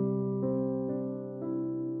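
Background music: a soft keyboard melody, with a new note struck about every half second and each note left to ring.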